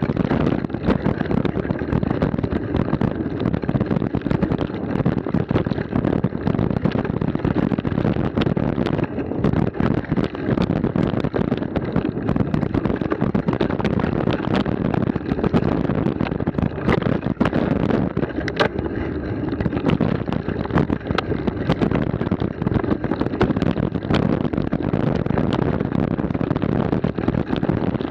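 Mountain bike descending a rough dirt and stone trail at speed: continuous tyre rumble and wind rush on the camera microphone, with dense rattling and clicks from the bike and stones.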